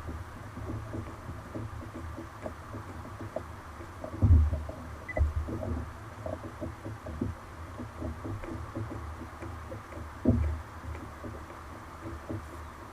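Irregular low thumps and rumbles on a fishing kayak at sea, over a steady hiss; the two loudest thumps come about four and ten seconds in.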